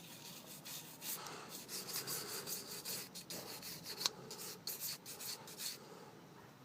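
A small brush wet with petrol scrubbing the gold edge contacts of a RAM stick: faint, irregular rubbing strokes, dying away near the end.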